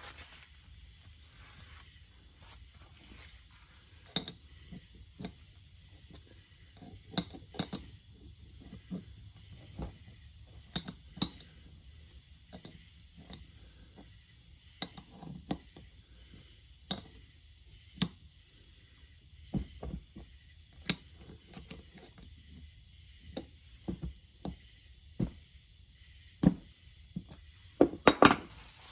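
Small steel wrench clicking and clinking against a lug nut and the studs of a wheel hub as the nut is worked onto a stud, in irregular single clinks with a louder cluster of clinks near the end.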